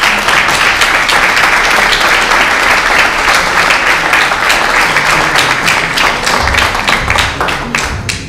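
Audience applauding: a dense, loud round of clapping that thins out into fewer, separate claps and fades near the end.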